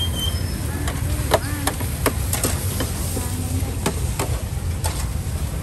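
Metal utensils clinking and scraping on a stainless-steel griddle tray: several sharp clinks scattered over a steady low rumble.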